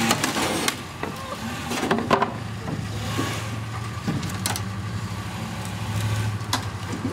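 Engine running steadily at low speed as a Pontiac Grand Am coupe creeps up onto a flatbed trailer, with a few short knocks and clunks along the way.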